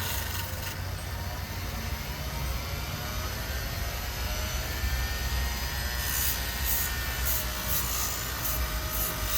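Motor-driven fiber wheel running steadily with a low hum as a pocketknife blade is worked against it for cleaning, with several short, high scraping strokes in the last few seconds.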